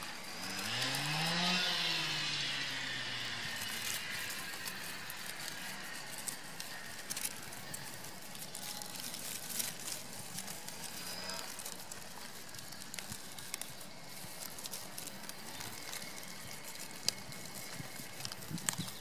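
A single long, low animal call near the start, rising and then slowly falling in pitch. After it comes a steady background hiss with scattered small clicks and rustles.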